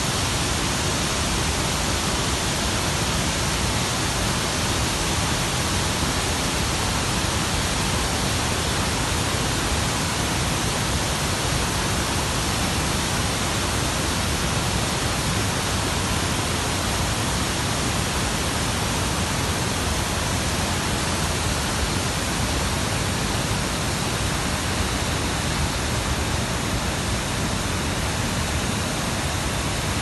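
A wide river waterfall pouring over rock ledges: a steady, loud rush of falling water.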